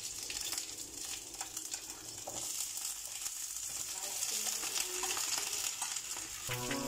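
Steady sizzle of hot oil in a frying pan on a gas stove, with a few light clicks of a spoon against the bowl and pan.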